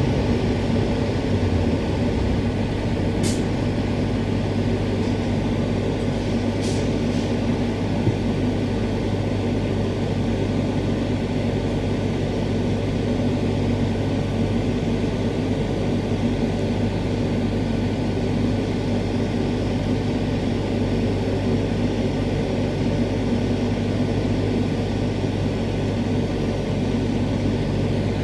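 Queensland Rail electric multiple unit (Walkers-built, ASEA propulsion) running along the line, heard from inside the passenger car: a steady drone of wheels on rail and traction equipment with a low hum. Two brief high-pitched sounds stand out a few seconds apart in the first seven seconds.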